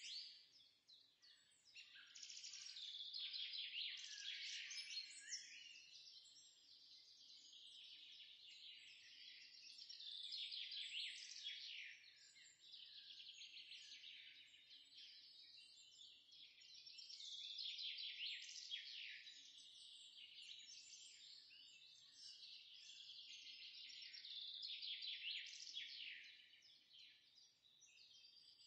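Onions frying in hot oil in a steel pot: a faint, high sizzling hiss full of fine crackles that swells and fades every few seconds.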